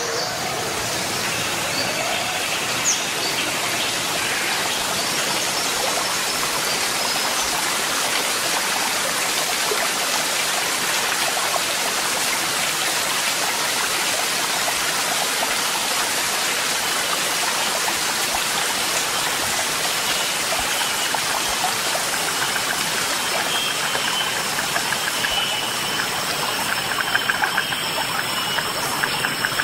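Steady, even rush of running water, like a stream or garden water feature, holding the same level throughout.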